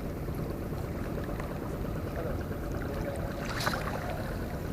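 Steady low rumble of waterfront background noise, water and wind, with a brief faint sound about three and a half seconds in.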